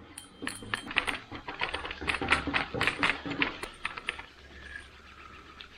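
Spinning reel being cranked to wind braided line onto its spool: a fast, irregular run of clicks and ticks that thins out about four seconds in.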